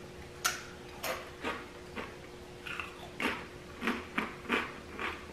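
Crunching of a Blaze Doritos tortilla chip being bitten and chewed, a crisp crunch about every half second.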